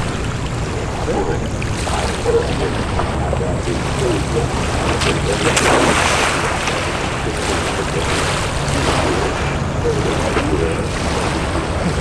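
Sea washing on a pebble shore with wind on the microphone; about six seconds in, a louder splash as a person plunges into the water.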